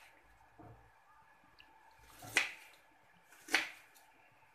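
Kitchen knife slicing through a large onion onto a plastic cutting board: two crisp cuts about a second apart, with a fainter knock near the start.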